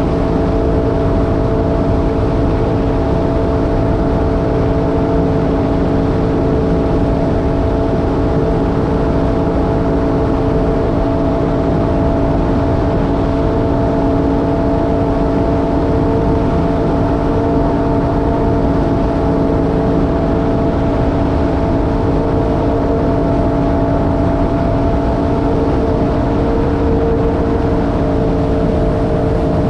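Jet ski engine running at a steady, unchanging speed: an even, pitched whine over a low rushing noise.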